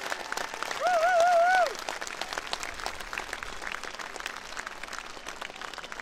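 Large open-air concert crowd applauding, many hands clapping in a dense patter. About a second in, a short wavering note sounds loudly over it for under a second.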